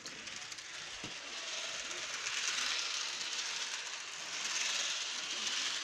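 HO-scale model train running on plastic roadbed track: a steady whirring, rattling hiss that swells twice as the train passes close.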